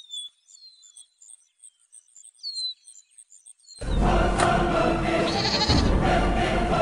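A few faint, high falling chirps. Then, about four seconds in, loud dramatic music with a choir starts suddenly.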